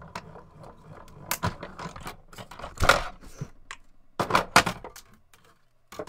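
Hand-cranked die-cutting and embossing machine rolling a die and cardstock between its cutting plates: a series of sharp cracks and crunches as the die cuts through, the loudest about three seconds in and another cluster around four and a half seconds.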